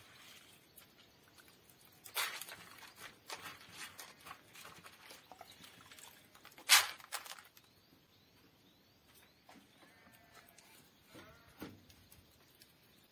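Handfuls of damp, sprouting wheat grain scooped out of a plastic bucket and dropped into thin plastic trays: scattered rustles and soft patters. The loudest is a sharp rustle about seven seconds in.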